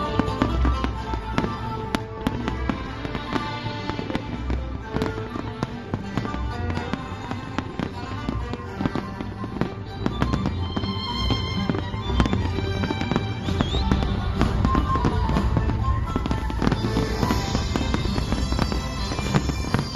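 Fireworks display: aerial shells bursting in a rapid string of bangs and crackles, with music playing underneath.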